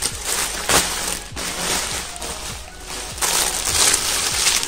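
Clear plastic garment bag crinkling and rustling as it is handled and opened and a dress is drawn out of it, in several loud rushes, the longest near the end.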